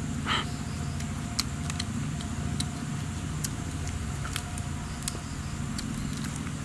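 Scattered sharp clicks and small crackles as fingers pick and tear flesh from a charred grilled stingray, over a steady low motor-like hum.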